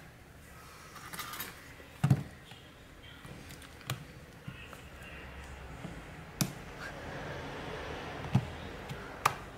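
Plastic clicks and scraping as the back battery cover of an Aspera F28 flip phone is pried off by hand with a plastic pick. A handful of sharp clicks are spread through, with a steady scraping rubbing in the second half.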